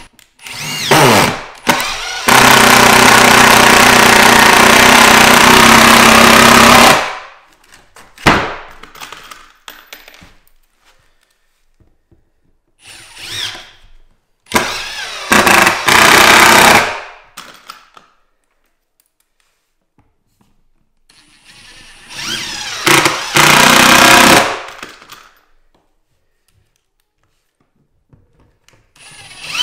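Cordless impact driver driving wood screws down through floorboards into a timber brace fixed beneath a loose board. It goes in separate runs: a short burst about a second in, a long run of about four seconds, then two shorter runs of two to three seconds, with quiet pauses between.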